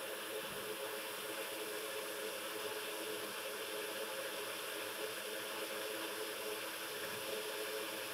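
Steady airflow hiss of a hot air rework station blowing onto the logic board, with a faint hum under it.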